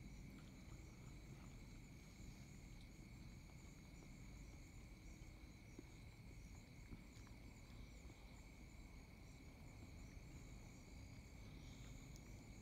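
Faint night insect chorus, crickets or katydids: a steady trill with quick pulsing chirps above it, over a constant low rumble.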